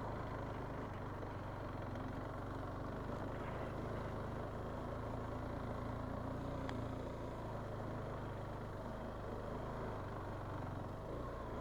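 Motorcycle engine running at low, steady revs on a steep rocky off-road descent, a low even hum.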